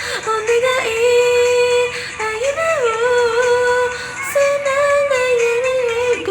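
A voice singing a Japanese-language pop song, holding long notes with short slides between pitches.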